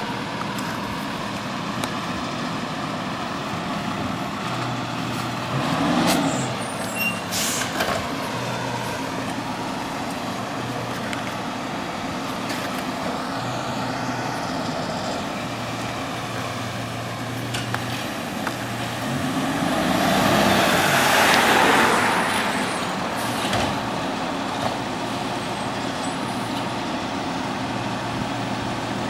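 Peterbilt garbage truck with a McNeilus body, its diesel engine running steadily at low speed, with a low engine tone that comes and goes. A few short sharp hisses and clicks come early on, and a louder hissing surge lasts a few seconds about two-thirds of the way through.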